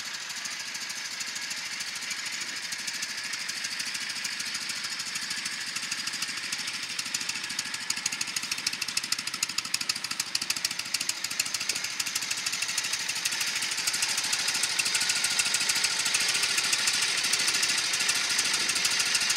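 1976 Harley-Davidson Shovelhead 1200 air-cooled V-twin idling on choke, a fast, steady pulsing beat. It grows louder over the second half.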